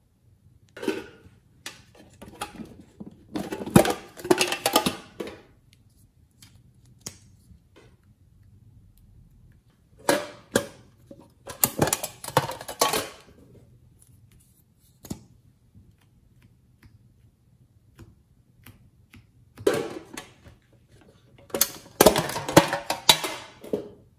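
Three spells of clicking, tapping and rattling as small containers are handled: a metal tin box opened and a lip tint tube taken out and uncapped.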